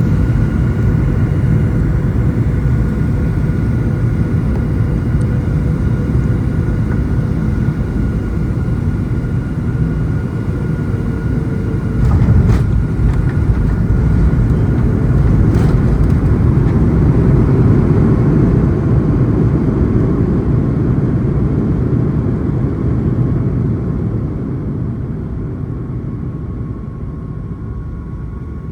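Boeing 737 MAX 9's CFM LEAP-1B turbofan engines at taxi power: a steady low rumble with a thin whine above it, slowly fading over the last few seconds. Two brief clicks come about twelve and fifteen seconds in.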